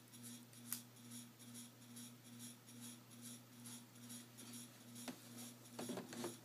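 Near silence: faint steady low hum of room tone, with a light click about a second in and a few soft knocks near the end.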